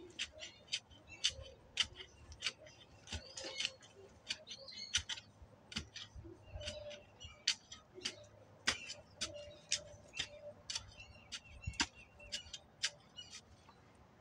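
A rapid, irregular series of sharp clicks, two or three a second, with a few short high chirps mixed in.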